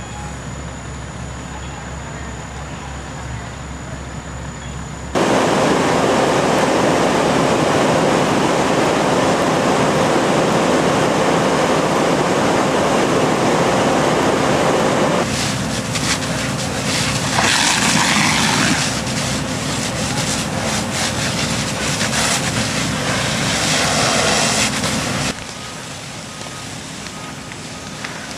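On-scene sound at a large house fire: a loud steady rush with a constant engine-like drone, typical of fire-engine pumps running beside the blaze. Crackling comes through in the middle stretch. The sound jumps louder about five seconds in and drops back near the end, changing abruptly at each cut.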